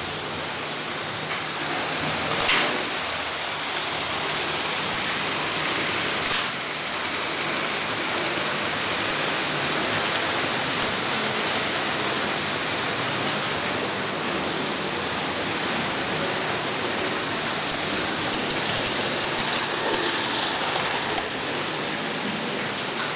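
Märklin model trains running on metal M-track: a steady rolling noise of wheels on the rails and the locomotives' motors, with two sharp clicks a few seconds apart near the start.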